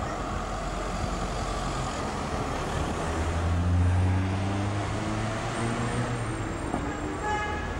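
Street traffic with an articulated tram approaching along street track. A vehicle passes close with a low engine hum that rises and is loudest about four seconds in. A short ringing tone sounds near the end.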